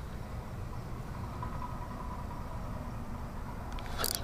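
Steady low rumble of outdoor background noise, with a short burst of clicking near the end.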